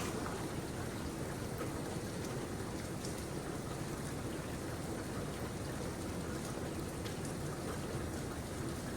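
Steady rain falling: an even hiss with scattered drops ticking on surfaces.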